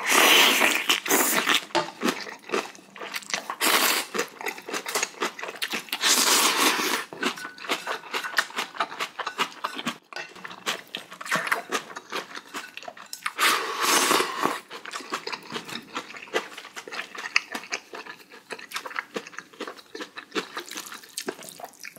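A man slurping ramen noodles with four loud rushing draws, near the start, about four and six seconds in, and again around fourteen seconds. Between them he chews noodles and crunchy kimchi close to the microphone, with quick wet crunching clicks.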